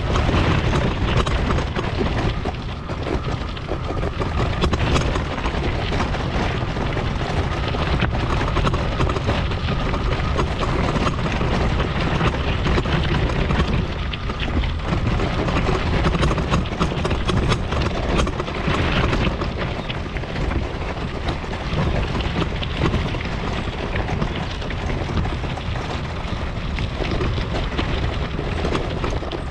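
Mobility scooter riding over a rough path: a steady rumble with constant small rattles and knocks, and wind buffeting the microphone.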